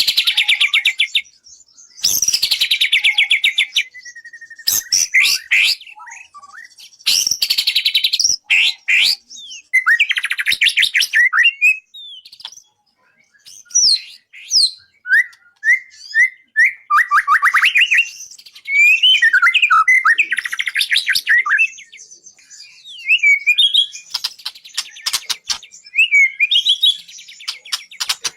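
White-rumped shama (murai batu) singing a varied song: loud phrases of rapid trills and buzzy rattles alternating with short rising and falling whistles, separated by brief pauses.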